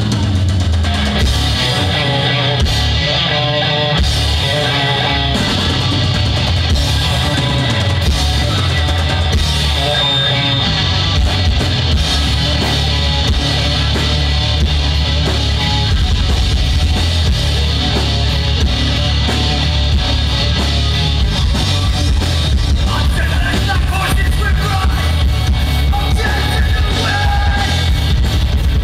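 Live rock band playing loudly, with distorted electric guitars and a drum kit.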